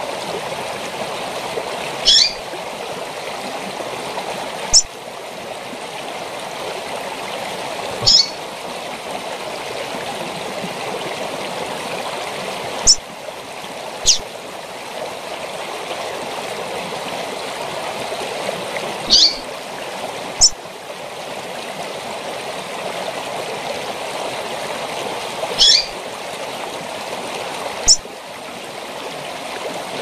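Female double-collared seedeater (coleiro) giving short, high-pitched calls, nine in all, a few seconds apart, some brief sharp chips and some a little longer, over the steady rush of a waterfall.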